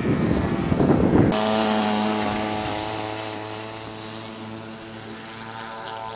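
Jamara Decathlon RC model airplane's motor and propeller running at a steady pitch, fading as the plane takes off and climbs away. For about the first second a loud rumbling noise covers it.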